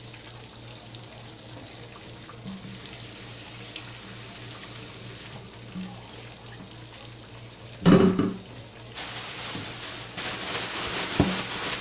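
Pork chops frying in hot grease in a skillet: a steady sizzle over a low hum. A short loud noise comes about eight seconds in, after which the sizzle turns louder and hissier, with a sharp click near the end.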